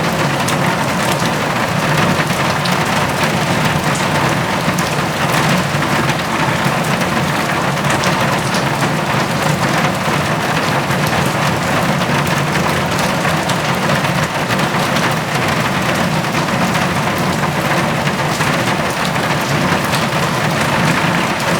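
Steady rain falling on a tin roof: an even, constant wash of noise dotted with countless small ticks of individual drops striking the metal.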